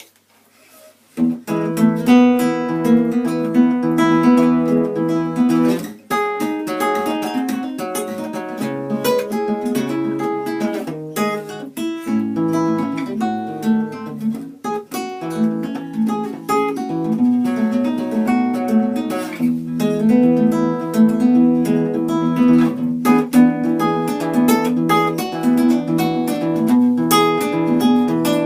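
Music on a plucked string instrument, played fast with many quick notes, starting about a second in.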